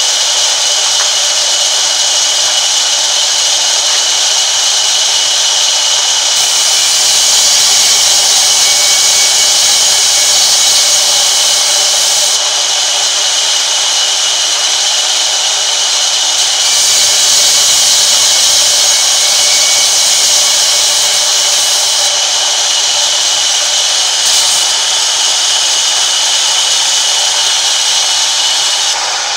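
Sawmill band saw running and ripping a long wooden plank: a loud, steady high-pitched whine and hiss that swells twice for several seconds.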